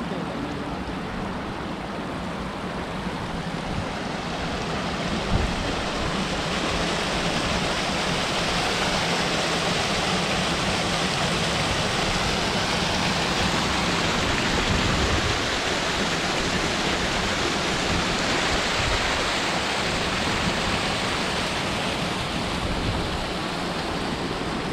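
Mountain stream rushing over rocks and pouring over a small stone step, a steady rush of water that swells about five seconds in and eases slightly near the end. A single brief knock sounds about five seconds in.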